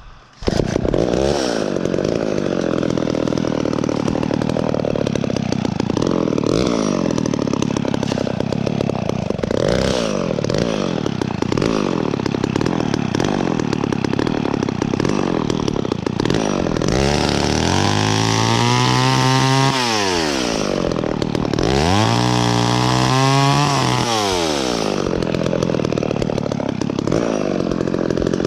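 Echo two-stroke chainsaw cutting dead branches. It comes in loud about half a second in, rising and falling in pitch every couple of seconds, then revs high twice for a few seconds each near two thirds of the way through.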